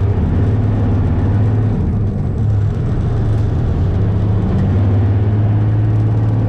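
Heavy beet truck's diesel engine running steadily with a low hum, heard from inside the cab while driving.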